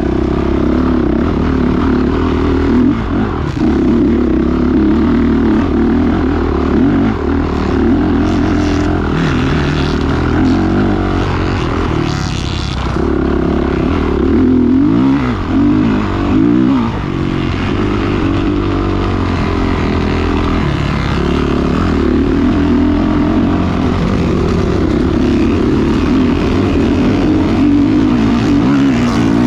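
Dirt bike engine running under load up a rough trail, heard on board. Its revs rise and fall with the throttle and swing up and down about halfway through.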